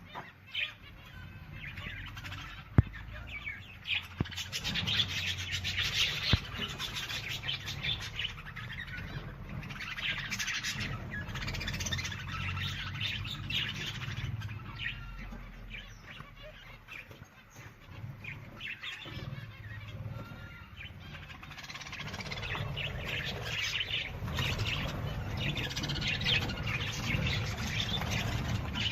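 Many birds chirping and calling at once, dense overlapping chirps with a low rumble beneath and a few sharp clicks, the loudest about three seconds in.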